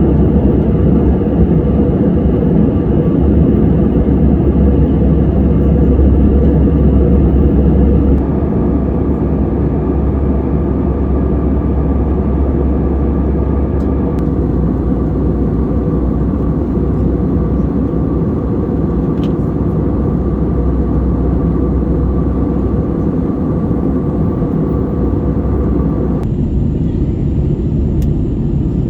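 Airbus A320-214 cabin noise in flight: a loud, steady roar of airflow and its CFM56 turbofans, with a few faint steady tones in it. The mix changes abruptly a few times, about 8, 14 and 26 seconds in.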